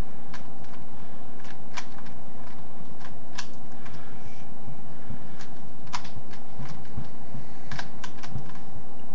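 Rubik's Cube being turned by hand during a speed solve: irregular plastic clicks and clacks as the layers snap round, a few a second, some louder than others.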